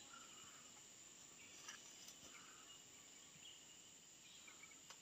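Near silence: faint rural ambience with a steady, high-pitched insect drone.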